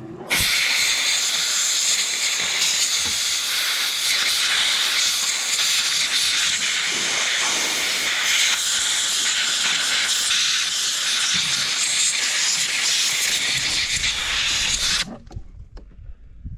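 Compressed air blowing sawdust out of a disassembled chainsaw, a loud steady hiss that cuts off suddenly near the end.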